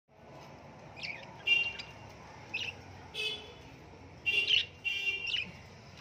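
Pet budgerigars chirping: a string of short, separate chirps and harsher chattering calls, about six of them spread over a few seconds.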